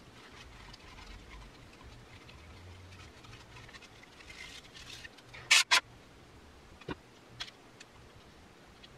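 Small hard parts being handled at a workbench: faint scraping and rustling, then two sharp clicks close together about five and a half seconds in, and two lighter taps soon after.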